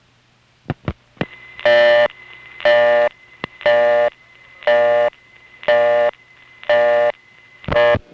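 Telephone busy signal on a 1970s Bell System line: a tone with many overtones pulsing on and off about once a second, seven times, over a faint line hum, after two clicks from the line about a second in. It means the dialled number, the joke line 836-5566, is engaged.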